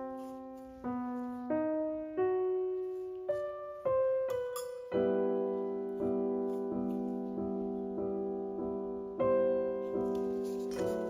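Background music: a slow, gentle solo piano melody, single notes struck about once a second and left to ring, then from about five seconds in, repeated chords.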